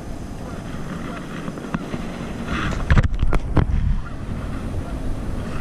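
Wind buffeting the microphone, with a quick run of three or four sharp knocks a little past halfway.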